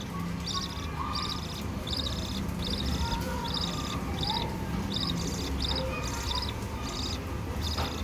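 Budgerigars chirping: a steady run of short high chirps, about two a second, with softer lower warbling calls among them.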